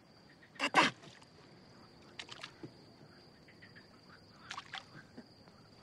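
Night-time outdoor ambience on the water: a steady high-pitched insect trill with scattered faint clicks and knocks, and a short, louder double burst of sound just under a second in.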